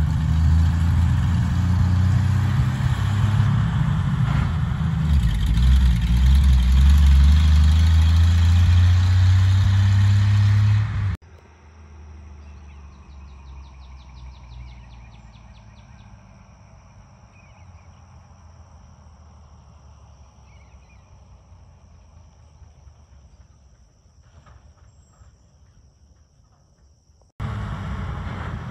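1951 Brockway truck's Continental 572 gasoline engine running, loud and steady, for about eleven seconds. It cuts off suddenly, and the same truck is then heard faintly approaching from far off, with birds chirping. About a second before the end the engine is loud and close again, running after a restart once a blown fuse was replaced.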